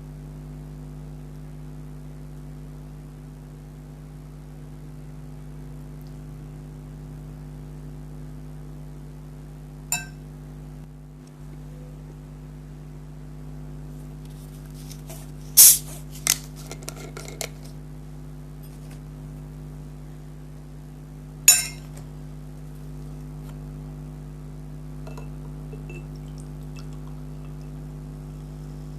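Cutlery clinking against dishware: a single clink about ten seconds in, a quick cluster of clinks a few seconds later (the loudest), and one more clink near the two-thirds mark, over a steady low electrical hum.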